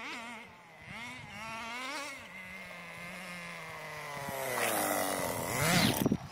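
Small two-stroke nitro glow engine of a 1/10-scale RC buggy: the throttle is blipped in short revs, then held as the buggy runs toward and close past the listener. It grows louder and its pitch drops sharply as it goes by near the end.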